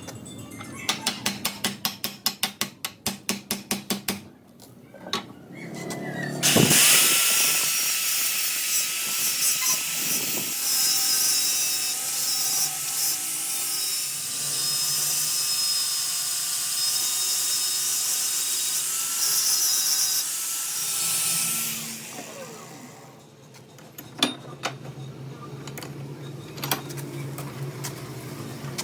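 A power tool spins up with a rising whine about six seconds in, runs steadily with a hissing, high whine for about fifteen seconds, then winds down. Before it comes a quick run of clicks, and after it scattered clicks and knocks of handwork on metal.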